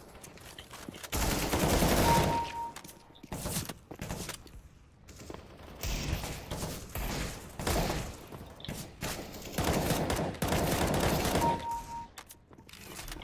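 Rapid gunfire in three long volleys, with a short high beep inside the first and last.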